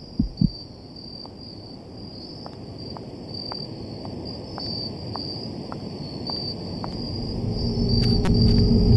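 Crickets chirping steadily. Near the start there are two heartbeat-like thumps, then faint footsteps about twice a second. About two-thirds of the way in, a low droning tone swells up and grows louder to the end.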